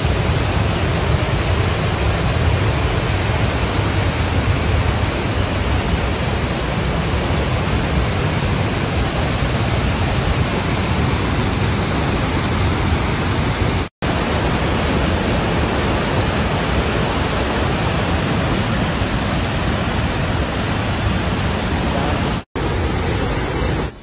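Waterfall: a loud, steady rush of falling water, broken twice by an instant of silence.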